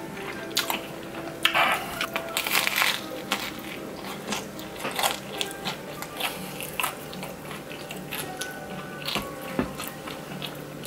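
Biting into and chewing a slice of Chicago deep-dish pizza close to the microphone. The crisp crust gives a rapid run of crunches, densest in the first few seconds, then sparser chewing crunches.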